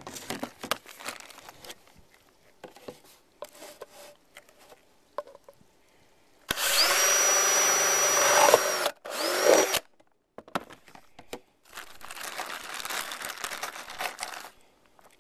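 Power drill drilling into a plastic bucket in two runs: a steady motor whine that rises as it spins up and falls as it stops, about two seconds long and then a shorter burst. There is handling clatter before the runs and a softer rasping stretch after them.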